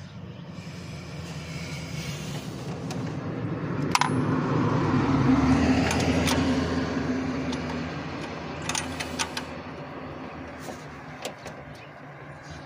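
A passing motor vehicle, its rumble swelling to a peak about five or six seconds in and then fading away. Over it come scattered light metal clicks and clinks from hands working on parts around the engine's throttle body.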